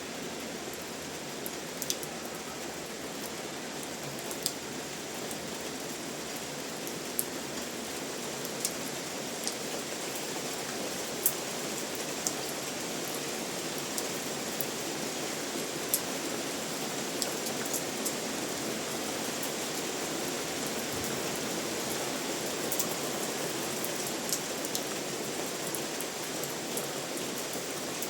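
Steady rain falling, with individual louder drops striking close by every second or two.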